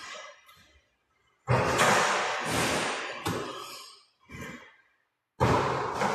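Basketball shots landing in the hoop and the shooting machine's net, twice: each time a sudden burst of noise with a few thuds from the ball, fading over about two seconds, with near silence between.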